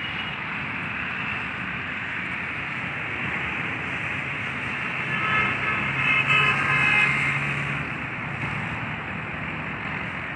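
Steady traffic and vehicle engine noise. From about five seconds in until nearly eight seconds, a pitched, horn-like tone sounds over it.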